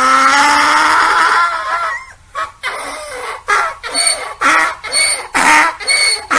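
Donkey braying: one long, drawn-out call for about the first two seconds, then rhythmic hee-haw cycles about twice a second.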